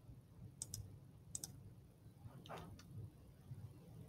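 Faint clicks from a computer mouse, two quick pairs about a second in and again half a second later, over a low steady room hum.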